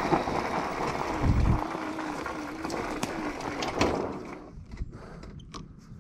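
Homemade electric dirtbike riding over a gravel trail: a faint electric-motor whine over the rush of wind and tyres on gravel, with a low thump just over a second in. About four seconds in the bike slows to a stop and the noise falls away, leaving a few light clicks.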